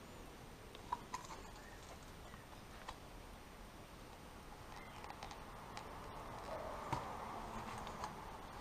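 Faint handling sounds: a few small clicks and light knocks as an adhesive cartridge and a section of linear drain channel with its grate are picked up and moved, with one sharper click near the end.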